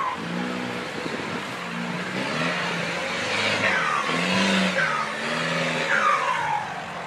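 Off-road 4x4 jeep engine revving in repeated pulses, its pitch rising and falling about once a second as it crawls through mud over obstacles. Three short high sounds falling in pitch come in the second half.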